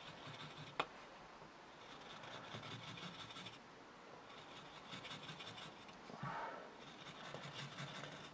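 Carving chisel scraping over a small wooden figure in several short runs of faint scraping, with one sharp tick about a second in: the surface is being textured with rows of small shallow chisel cuts.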